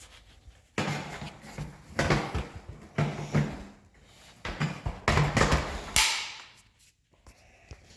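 A series of plastic knocks, clatters and rubbing noises, about five bursts roughly a second apart: a Dirt Devil Endura Reach vacuum being handled, with its dust bin worked in and out.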